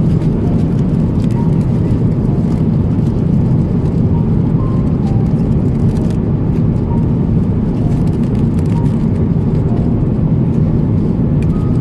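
Steady airliner cabin noise: a loud, even, low drone of engines and airflow. Faint light crinkles come from the aluminium foil lid of an in-flight meal tray being handled.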